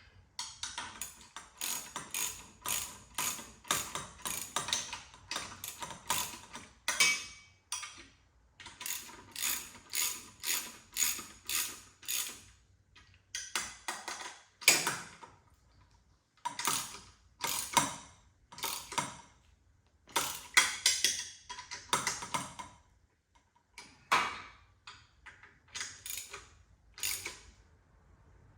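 Hand ratchet wrench clicking in repeated back-and-forth strokes, in runs with short pauses, as the exhaust pipe flange bolts are tightened against the exhaust manifold.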